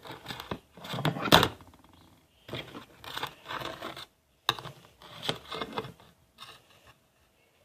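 Handling noises as a pinch of salt is taken and added to shampoo on a spoon: several short bursts of scraping and rustling, with two sharp clicks, about a second and a half in and about four and a half seconds in.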